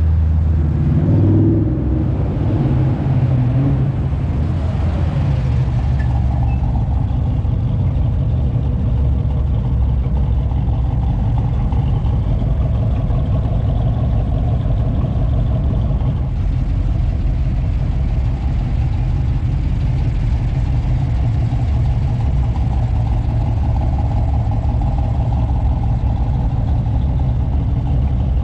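Classic and muscle car engines running with a steady deep rumble; one revs up briefly in the first few seconds.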